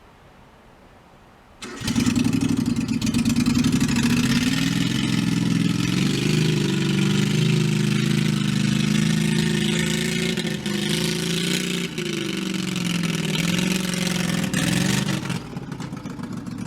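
A vehicle engine cuts in abruptly about two seconds in and runs loudly, its pitch shifting a little as it revs, before easing off near the end, apparently while towing a sled.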